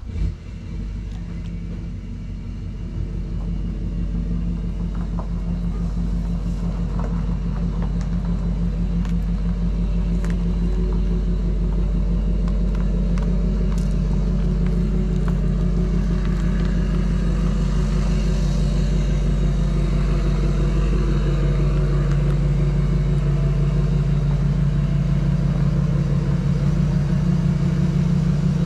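Dually pickup truck's engine running steadily at low speed as it reverses a boat trailer toward the water, a low rumble that grows louder over the first several seconds and then holds.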